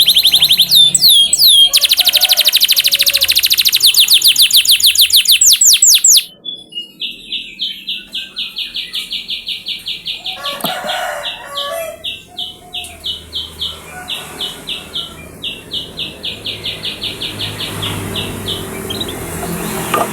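Domestic canary singing: loud, very fast high-pitched trills for about the first six seconds, then a quieter, steady run of repeated chirping notes, a few a second.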